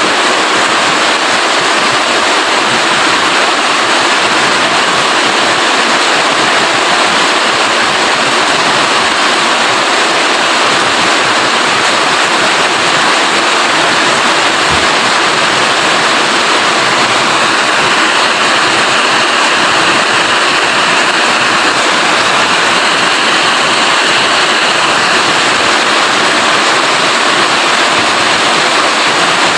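Heavy rain falling steadily, a loud, dense, even hiss. Faint high-pitched tones sound for several seconds past the middle.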